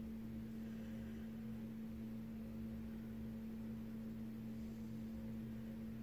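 Steady low background hum: one even tone with a fainter, lower drone beneath it, unchanging throughout.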